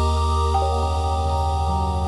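Gentle ambient new-age music: held synth-like tones that shift pitch every half second or so over a steady deep drone.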